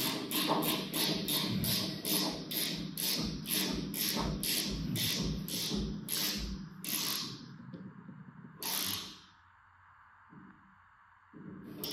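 Ratcheting combination spanner (Wera Joker, 16 mm) clicking steadily as it screws a radiator valve tail into a radiator, about three clicks a second. The clicking stops about seven seconds in, followed by one louder scrape and then quiet.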